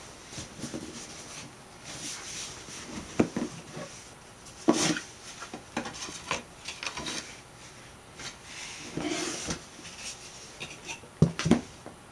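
Gull-wing cardboard shoebox being opened and unpacked by hand: irregular knocks of the lid and flaps and rustling of the paper insert, with sharp knocks about three, five and eleven seconds in.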